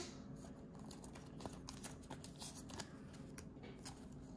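Faint rustling and light crackling of a soft clear plastic card sleeve as a trading card is slid into it.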